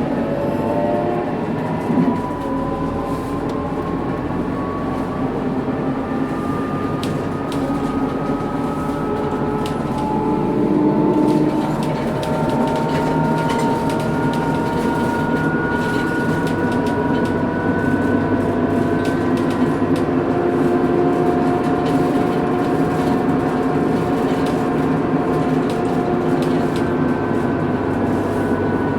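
Scania K230UB bus under way: a high differential whine from the rear axle, several tones climbing slowly in pitch as road speed builds, over the steady running of the Scania DC9 diesel and ZF Ecomat automatic gearbox.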